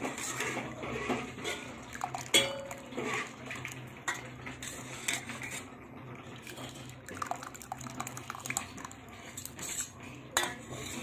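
Steel ladle scraping and clinking against a steel pot while stirring cooked rice in its starchy water, with a sharp ringing clink about two seconds in and another near the end. Near the end, starchy water splashes as it is poured back from the ladle into the pot.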